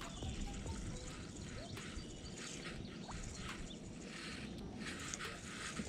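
Faint bird chirps over a quiet, steady outdoor background hiss.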